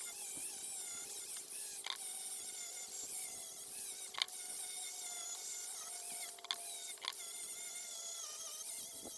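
A small power tool running with a steady, wavering high whine, broken by four sharp clicks.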